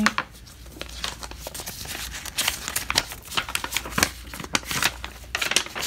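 Things being handled and moved about on a table, with a string of irregular clicks, taps and papery rustles.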